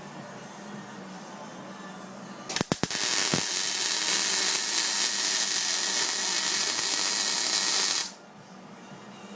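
Electric welding arc: it strikes with a few sharp crackles, then burns with a steady loud crackling hiss for about five seconds before cutting off abruptly.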